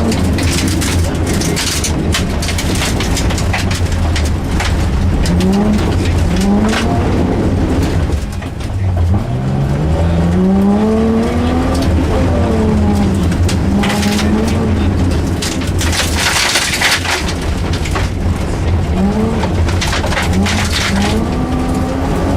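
Rally car engine revving hard and easing off, its pitch sweeping up and falling back again and again as it is driven through a stage, over a steady low drone. A loud rushing hiss breaks in about two-thirds of the way through.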